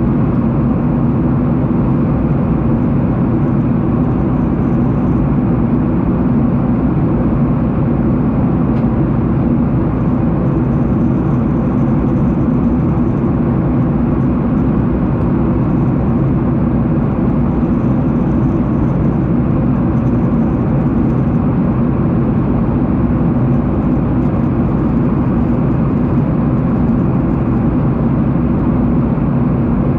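Steady airliner cabin noise: the low, even rumble of the engines and the airflow heard from inside the passenger cabin, holding at one level with no changes.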